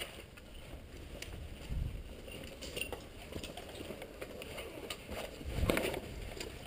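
Footsteps crunching over broken concrete and rubble, with irregular small clicks and clinks of loose debris; a heavier thud about five and a half seconds in.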